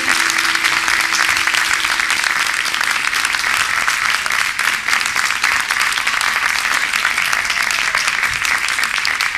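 Audience applauding steadily at the end of a live song; the band's last held note dies away just as the applause begins.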